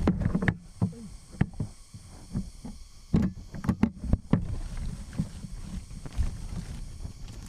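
Irregular knocks, thumps and scraping, of a man climbing a large tree trunk by hand.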